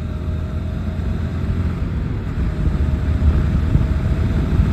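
Motorcycle on the move: steady, muffled engine and wind rumble heard from a phone tucked inside the rider's helmet.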